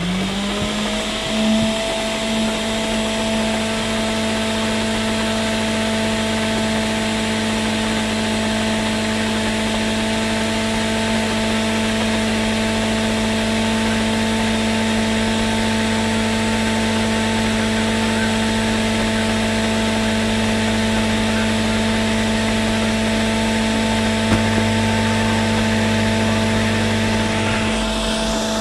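Countertop blender motor starting up, its pitch rising briefly before settling into a steady run while it blends a thick homemade hair-treatment mixture.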